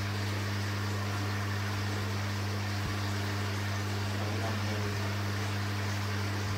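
Aquarium air pump and filter running: a steady low electrical hum under a constant hiss of bubbling water, with one faint click about three seconds in.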